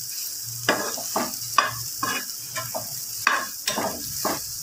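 Spatula stirring and scraping diced boiled potatoes around a non-stick frying pan, in short strokes about two a second, over a steady sizzle of frying in oil.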